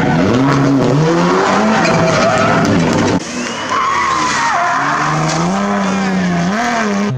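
Rally car engines at full throttle through tight hairpins, the pitch climbing and dropping again and again with gear changes and lifts off the throttle. About three seconds in the sound cuts to a second car sliding sideways through a corner, its tyres squealing.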